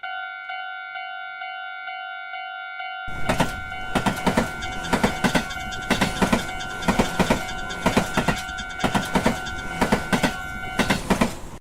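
Japanese railroad crossing warning bell ringing its repeated electronic kan-kan tone. About three seconds in, a train passes with loud rhythmic clickety-clack of wheels over rail joints. Near the end the bell stops, and the train sound cuts off.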